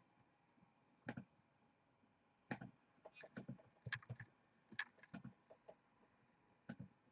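Faint, irregular clicks of a computer mouse and keyboard, a single click or a short run of two or three at a time.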